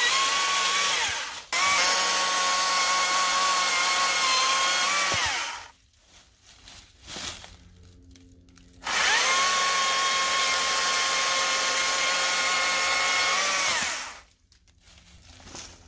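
Stihl MSA 140 C cordless battery chainsaw, its electric motor running at full speed with a steady high whine while cutting a beech log. It runs in spells and winds down in pitch each time the trigger is released: once about five seconds in, then again after a gap of about three seconds, near the end.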